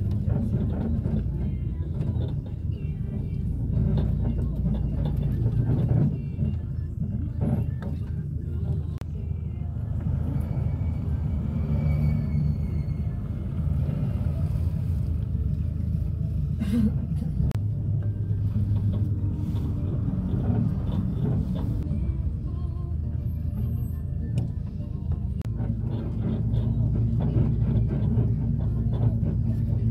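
Cabin noise inside a moving minibus: engine and tyre noise running steadily.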